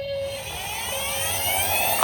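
Ambulance siren sound: a steady electronic tone that breaks off about half a second in and gives way to a wail rising steadily in pitch, over a low rumble.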